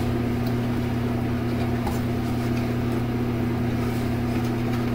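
A steady low hum, even and unchanging, with a faint click about two seconds in.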